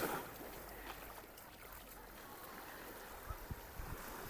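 Small waves washing onto a sandy beach, briefly louder at the start, with faint distant voices of beachgoers.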